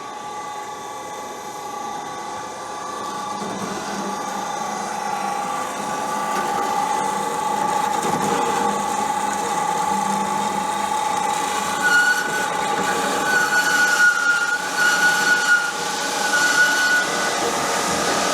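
Hyd-Mech S-23 horizontal band saw running with a steady whine, growing louder as the blade works through metal stock. From about two-thirds of the way in, a higher squeal comes and goes several times.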